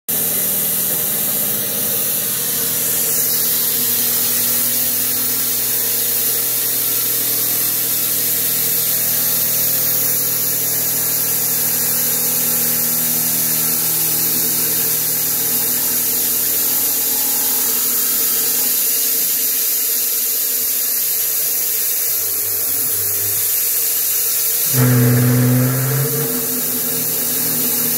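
Precision Matthews PM-25MV mill, converted to CNC, cutting a pocket in a hard jaw with an end mill: a steady spraying hiss from the coolant nozzle aimed at the cutter, over a steady machine hum. A louder low drone comes for about a second near the end.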